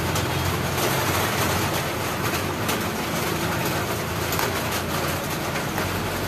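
Metal ladle stirring and lifting simmering coconut milk in a metal wok over a gas stove, with a few faint scrapes and splashes, against a steady roaring hiss and a low hum.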